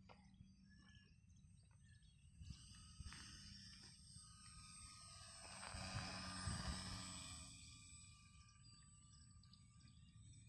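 Faint motor and propeller noise of a small radio-controlled airplane making a low pass: it swells to a peak about six seconds in as the plane goes by, then fades away.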